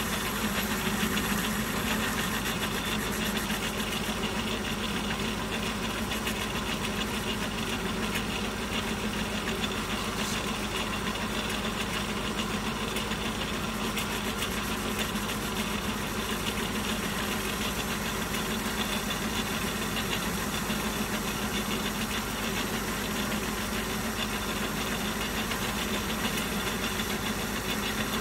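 Centre lathe running steadily with a constant hum while its compound rest is fed by hand, turning a taper on a metal workpiece.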